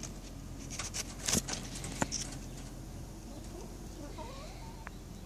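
Quiet outdoor background with a few sharp clicks and rustles from a phone brushing against pepper-plant leaves, and a faint wavering bird call about three to four seconds in.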